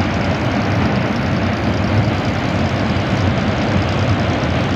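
Steady rumble of a passenger train running across a steel-truss railway bridge, heard from a distance.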